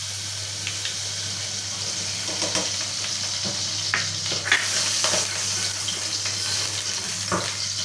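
Desi ghee melting and sizzling in a hot aluminium kadai, a steady hiss, while a wooden spoon scrapes and knocks against the pan several times from about two seconds in.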